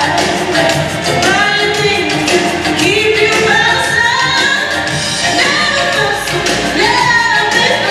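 Recorded song with singing over an instrumental backing, played continuously over a gymnasium's sound system.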